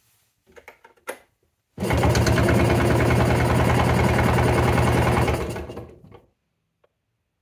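The 1958 NSU Prima D's single-cylinder two-stroke engine being cranked on its starter with the throttle wide open during a wet compression test, with two-stroke oil squirted into the cylinder. There is a fast, even rhythm of compression strokes that starts about two seconds in, runs for about four seconds and fades out. A few soft clicks come before it.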